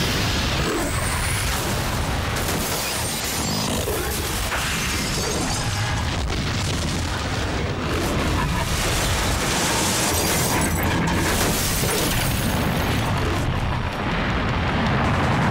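Sound-effect explosion of a huge fireball blast: a heavy, continuous rumbling boom with a dense, steady rush of noise.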